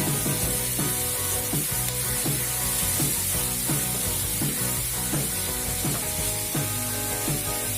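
Fish frying in hot oil with a steady sizzle, under background music with a regular beat.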